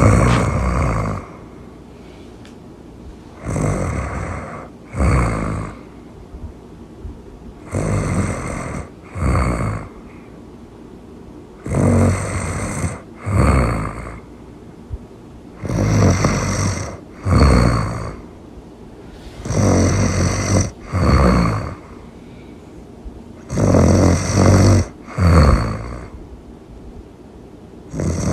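Really loud snoring in a steady rhythm: two snores about a second apart, the pair repeating roughly every four seconds.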